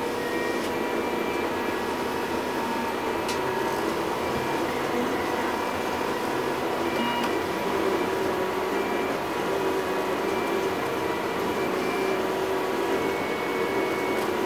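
MendelMax 3D printer running a skirt pass: its stepper motors whine steadily over a constant hum, with short higher tones that shift pitch every second or so as the print head changes direction.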